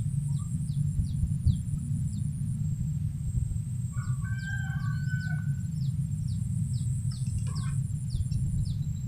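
Outdoor ambience: a small bird gives short falling chirps about twice a second over a steady thin high insect whine and a low rumble, and a rooster crows once about four seconds in.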